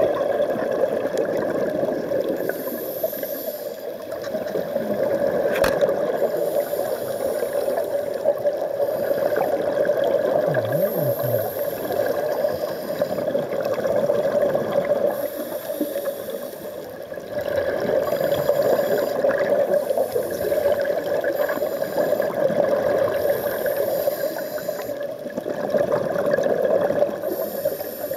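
Scuba diver's breathing heard underwater: regulator hiss and bubbling exhaust, rising and falling in a cycle every few seconds.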